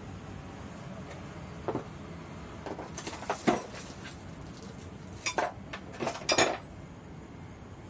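Metal parts of a long-reach pneumatic air scaler knocking and clinking against its hard blow-moulded plastic carrying case as they are set into it. The knocks come in scattered clusters, loudest about three and a half and six seconds in, over a steady low hum.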